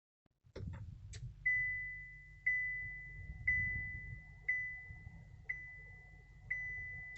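Chevrolet Tracker's dashboard warning chime, a clear single-pitched ding repeated once a second six times, each note fading, over a steady low cabin rumble. A few sharp clicks come just before the chime starts.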